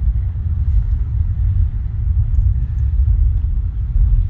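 Wind buffeting the microphone outdoors: a steady, uneven low rumble.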